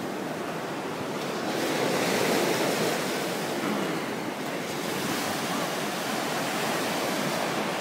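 Sea surf breaking and washing up on a sandy beach, a steady rushing noise that swells louder about two seconds in.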